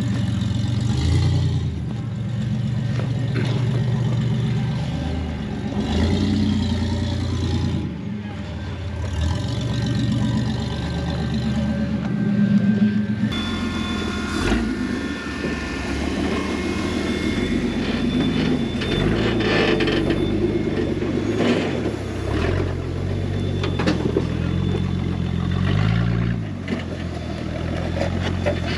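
Rock buggy engines revving up and down in short bursts as the buggies crawl over boulders, with a few sharp knocks. About halfway in the sound changes abruptly to a second buggy working close by.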